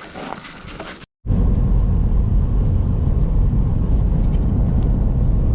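Faint footsteps for about a second, then after an abrupt cut a loud, steady low rumble that stays even throughout.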